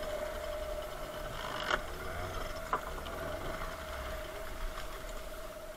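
Bamboo oars working a small wooden fishing boat through choppy sea: a sharp knock a little under two seconds in, another a second later and a fainter one near the end, over water and wind noise and a steady hum.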